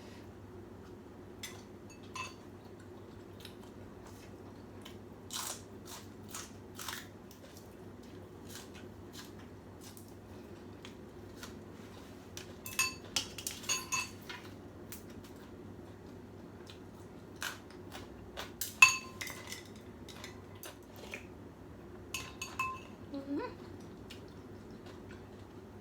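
Eating utensils clicking and clinking against a bowl of noodle soup, in scattered taps, with a few brief ringing clinks in small clusters; the sharpest is about two-thirds in.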